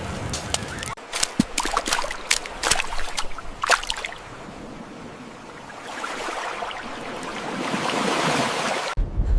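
Water: a run of sharp splashes in the first few seconds, then a rushing wash that swells and cuts off abruptly near the end.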